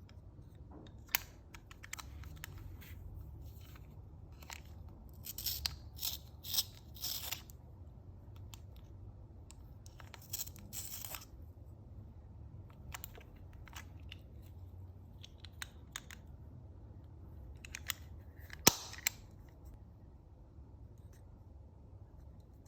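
Small stationery items and their packaging handled up close: scattered clicks and taps with short bursts of crinkly rustling, clustered about five to seven seconds in and again around ten seconds, and one sharp click near the end.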